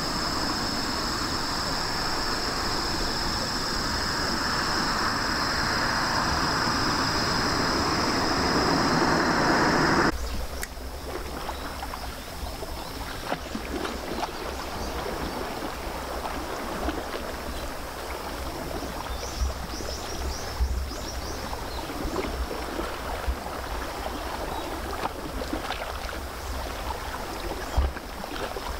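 A steady outdoor hiss with a high steady whine cuts off abruptly about ten seconds in. After it, water laps and splashes against a rocky shoreline, with wind rumbling on the microphone and scattered small ticks.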